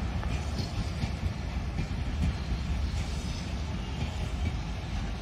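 Train running on the rails: a steady low rumble with a few faint wheel clicks.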